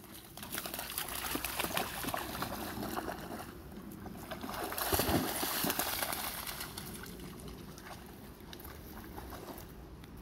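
A dog splashing and wading through shallow river water, the splashing loudest about five seconds in and then dying away as it slows to a wade.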